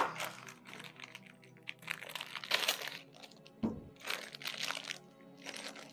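A small plastic bag of hardware crinkling in uneven bursts as it is handled and opened, with background music underneath.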